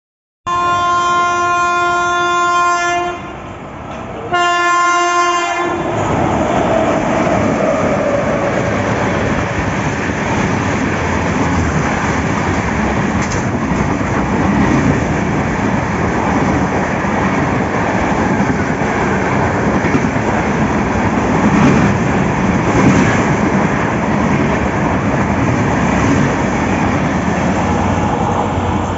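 WAP-7 electric locomotive's horn sounding twice, a long blast and then a shorter one. The express's coaches then pass at speed with a steady rumble and clickety-clack of wheels over the rail joints.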